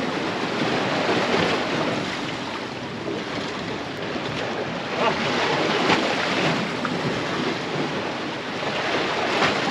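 Surf washing against a rocky jetty, mixed with wind buffeting the microphone: a steady rushing noise that swells louder about five seconds in.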